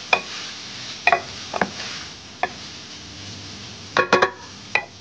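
A wooden spoon stirring chicken pieces frying in a stainless steel pan, over a steady sizzle, with a few single knocks of the spoon against the pan. About four seconds in comes a quick cluster of ringing knocks, the spoon tapped on the pan, then one more.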